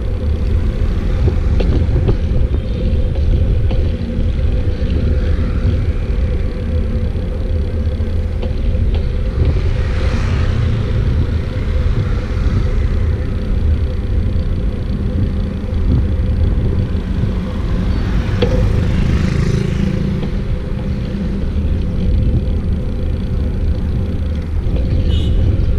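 Steady low rumble of wind and road noise on the microphone during a bicycle ride in traffic, with two louder swells of passing traffic about ten and nineteen seconds in.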